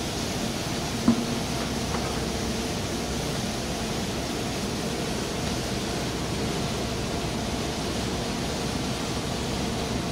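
Steady workshop background noise, an even machinery hum, with one light knock about a second in as a rubber tile is handled.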